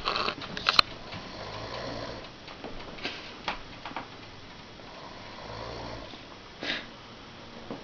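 Snoring: two slow snores about four seconds apart, with a few short, sharp clicks in between.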